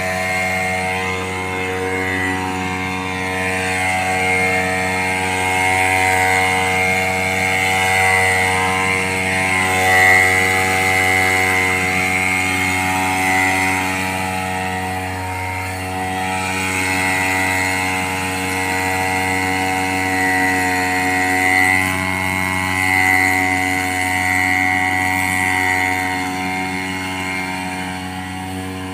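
Small engine of a backpack power sprayer running steadily at constant speed while spraying, a steady hum with a higher, slightly wavering whine over it.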